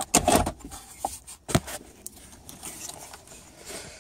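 Hands working plastic wiring-harness connectors loose from the back of a car's instrument cluster: irregular plastic clicks, knocks and rattles, several in the first second and a half, then fainter scattered ticks.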